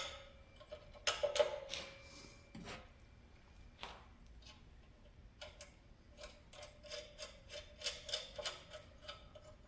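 Metal parts clinking and knocking while a work rest is fitted to a belt grinder, with a few sharp knocks early, then a run of light metallic clicks, about four a second, each with a short ring.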